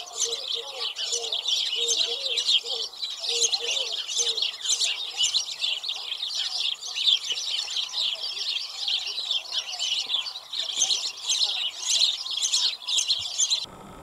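House sparrows chirping: many short calls overlap in a dense, continuous chatter, with some lower notes in the first few seconds. It cuts off suddenly near the end.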